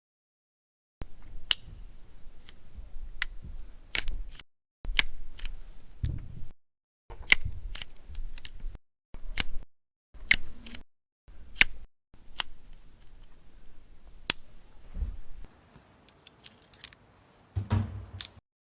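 Sharp metallic clicks and rattles from working the action of a Nagant M1895 revolver, in a series of short separate takes cut apart by silence, with one to three clicks in each. Near the end comes a duller metal clatter.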